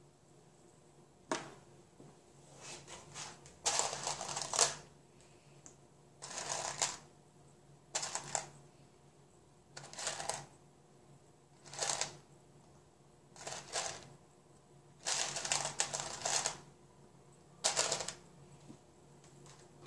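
Small plastic 4D Frame connector pieces rattling and clattering in a plastic tub as a hand rummages through them and picks pieces out. The clatter comes in about ten short bursts, one every second or two.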